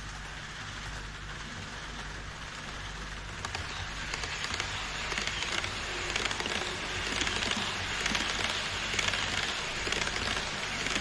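HO-scale model trains rolling along elevated plastic viaduct track: a dense clicking rattle of small wheels over the rail joints, over a steady low hum. The rattle grows louder from about four seconds in as an E5 series Shinkansen model approaches and passes.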